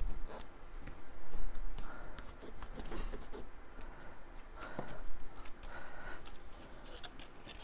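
Cardstock being handled and folded by hand: soft paper rustling with scattered small taps and clicks.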